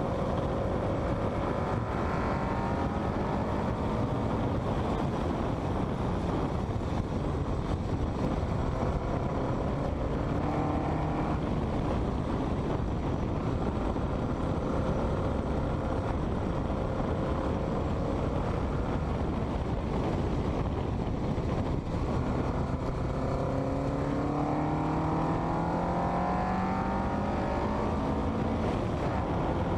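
Westfield kit car's engine running hard on track, heard onboard under a constant rush of wind and road noise. Its note climbs several times as the car accelerates, most clearly in the last few seconds.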